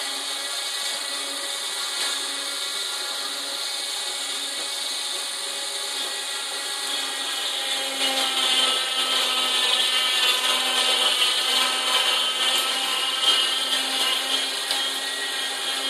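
Coway JuicePresso JP03 vertical-auger slow juicer running with a steady motor hum. About eight seconds in it grows louder and brighter as pineapple chunks are fed in and crushed by the auger.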